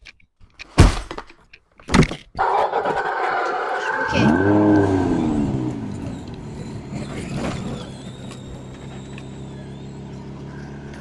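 Two sharp knocks, then a child's electric ride-on Tonka dump truck starts up and drives off. Its motor gives a steady hum that grows fainter after about eight seconds.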